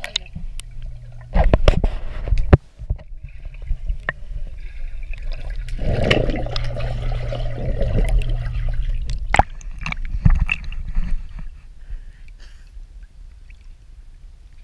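Swimming-pool water splashing, gurgling and bubbling around an action camera as it dips in and out of the surface, with a steady low hum underneath. A few loud splashes come between one and a half and two and a half seconds in, and a longer stretch of churning water runs through the middle.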